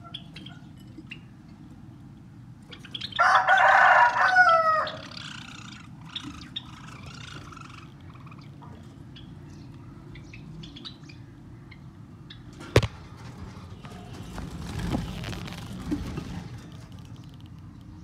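A rooster crows once, about three seconds in: a held call of about a second and a half that falls in pitch at the end. A single sharp click comes later, over steady low background noise.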